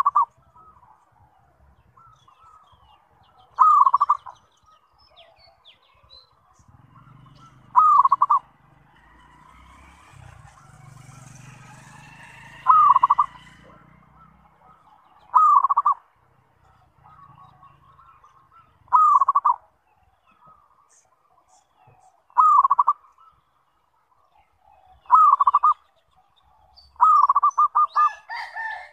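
Zebra dove (perkutut) cooing: short phrases of rolling coos repeat about every three to four seconds, nine in all. The last phrase, near the end, is longer, with several quick notes.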